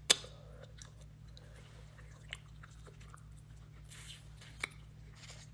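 Close-up chewing and biting on soft wax candy: wet mouth clicks and small crunches, with one sharp click right at the start and two smaller ones later, over a low steady hum.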